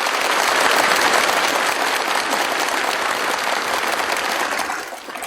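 A large audience applauding, a dense steady clapping that eases a little near the end.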